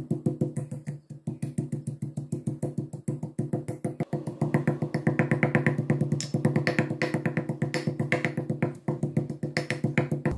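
Stainless steel pestle pounding garlic and black peppercorns in a stainless steel mortar: rapid, even strikes, with the metal bowl ringing at a steady pitch.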